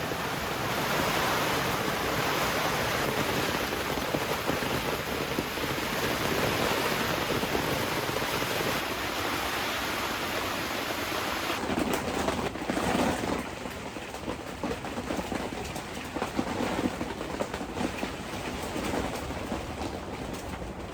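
Torrential rain pouring down in a steady loud hiss. About twelve seconds in it changes abruptly to a quieter rain sound with scattered individual drop hits and thuds.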